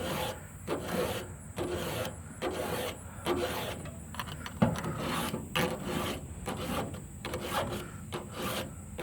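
Hand file rasping across the cutter teeth of a chainsaw chain, sharpened freehand without a guide, in steady repeated strokes a little more than one a second.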